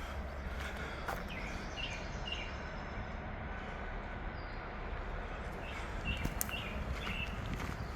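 Birds chirping: a pair of short chirps about two seconds in and a quicker run of four near the end, over a steady low rumble.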